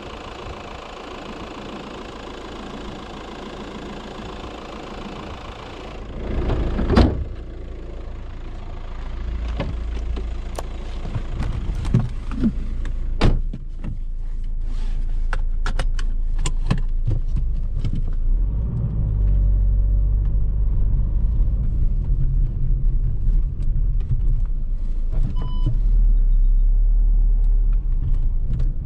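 Škoda Octavia's 1.9 TDI four-cylinder pumpe-düse diesel idling, then a loud thump about seven seconds in followed by a series of clicks and knocks. After that a louder, steady low rumble of the car builds.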